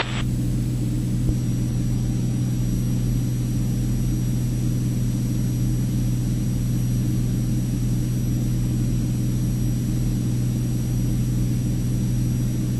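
Cirrus SR22T's turbocharged six-cylinder piston engine and propeller droning steadily in flight, one unchanging low hum with its overtones.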